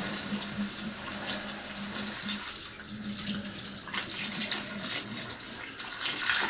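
Water running and splashing, with a steady low hum under it for the first couple of seconds, after which the water sound turns uneven and splashy.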